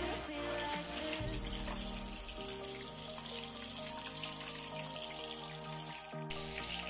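Background music over a steady hiss of breaded shrimp frying in hot oil. Both change abruptly near the end.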